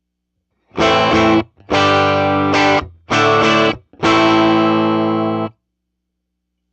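Electric guitar played through a 1963 Vox AC-10 valve amplifier: four separate chords struck about a second apart, the last one left ringing for about a second and a half before it is cut off.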